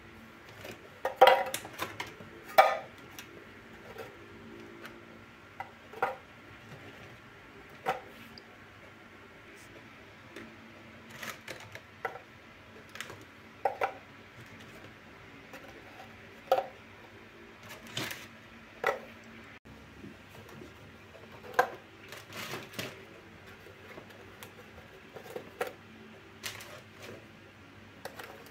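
Biscuits being dropped by hand into a clear storage canister from a plastic tray: irregular clinks and clatters, one every second or two.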